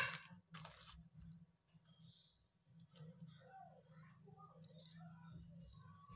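Faint handling noises: light clicks and rustling of bubble-wrap plastic as phone parts are picked up and set down, with a brief louder crinkle right at the start, over a low steady hum.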